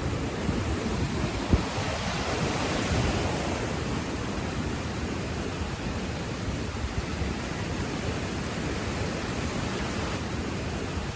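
Floodwater rushing steadily, an even unbroken noise, with one short knock about a second and a half in.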